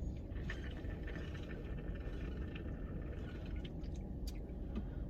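Steady low rumble of an idling car heard from inside the cabin, with a few faint clicks and rustles.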